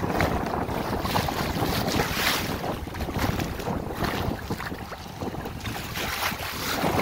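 Wind buffeting the microphone over water rushing and splashing along the hull of a 1987 MacGregor 26D sailboat as it moves through choppy water, rising and falling in surges.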